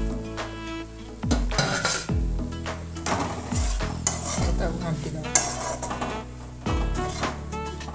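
Wooden spatula stirring fried raw banana cubes and moong dal paste in a metal kadai, scraping and clicking against the pan with a light sizzle of oil. Background music with a deep, thumping bass beat plays throughout.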